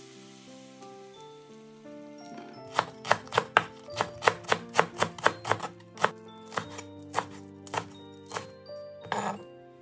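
Knife chopping on a cutting board: a run of quick sharp strikes starting about three seconds in, about four a second at first, then slower and more spaced, followed by a brief scraping sound just after nine seconds. Soft background music plays underneath.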